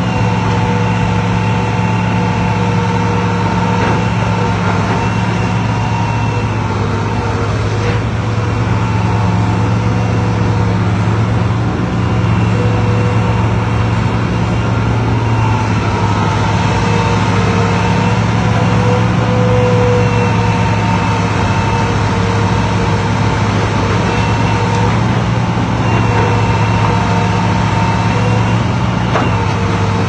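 Tracked excavator's diesel engine running steadily as the machine works, with whining tones that come and go and a few brief knocks.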